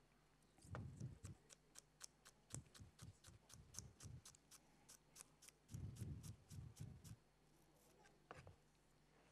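A chef's knife chopping quickly on a cutting board, light, even taps about five a second, stopping about three quarters of the way through, with a couple more cuts afterwards.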